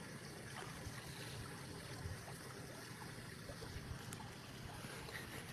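Faint, steady water lapping at a fishpond's surface, with a low rumble underneath.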